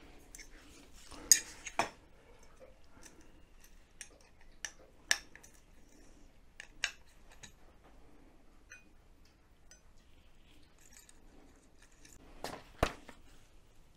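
Scattered clicks and clinks of an Allen key, set screws and the tracker's leg parts being handled and screwed together, the sharpest knocks about a second in and near the end.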